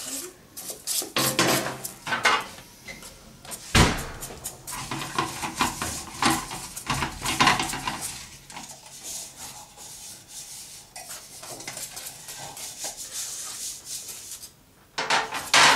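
Thick banana cake batter being stirred by hand in a stainless steel pot, the utensil scraping and clinking irregularly against the metal. There is a sharp knock about four seconds in and another loud clatter near the end.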